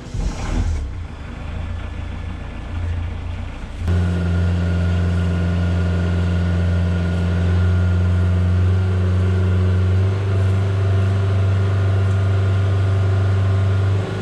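Volvo Penta D2-55 four-cylinder marine diesel starting up: it cranks and catches, runs unevenly for a few seconds, then about four seconds in the throttle is opened and it runs steadily at raised revs, around 2,000 rpm and more.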